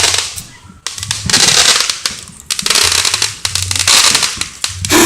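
A firework going off in dense crackling pops over a hiss, in several loud surges with short lulls between them.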